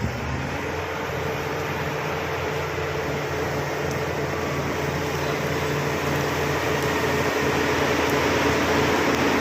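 Bulldozer's diesel engine running steadily, gradually growing louder.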